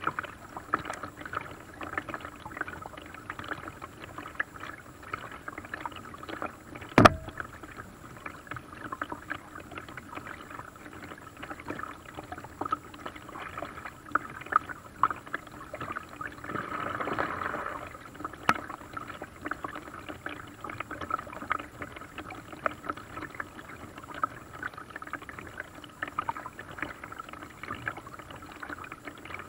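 Paddle strokes dipping and splashing in lake water, with many small irregular drips and splashes. There is one sharp knock about seven seconds in, and a brief louder swell of rushing water a little past halfway.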